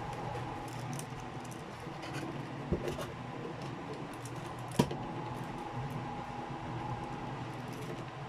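Plastic figure packaging being handled: light rustling and small ticks, with two sharp clicks about a third and halfway through, over a steady background hum.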